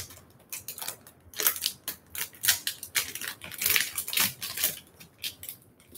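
Foil wrapper of a trading-card box loader pack crinkling and tearing as it is pulled open by hand, in a string of irregular crackles.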